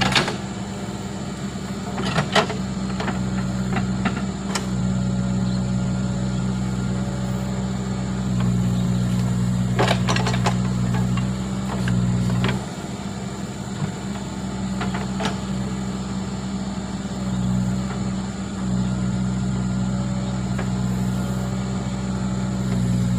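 Case backhoe loader's diesel engine running steadily, rising and falling with the hydraulic load as the arm digs and lifts sand into a dump truck. A few sharp knocks now and then.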